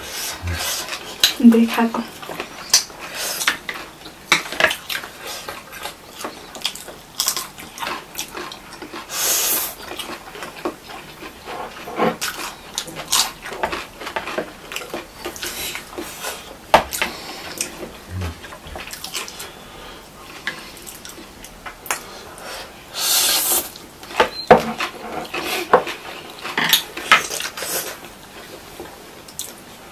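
Close-miked eating sounds: chowmein noodles being slurped and chewed, with chopsticks clicking against plates and bowls. Two longer slurps stand out, about a third of the way in and again past three quarters.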